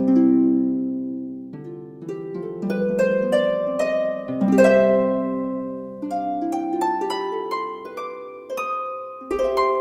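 Background music of plucked string notes: a chord at the start, then single notes rising and falling in a flowing run.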